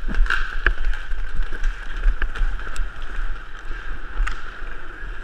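Low rumble of inline skating across a sport-court floor, with wind buffeting a helmet-mounted camera, and scattered sharp clicks.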